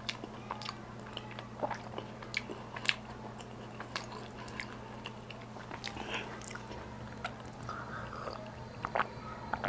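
Close-miked chewing and biting: irregular wet mouth clicks and smacks, a few sharper ones now and then, over a steady low hum.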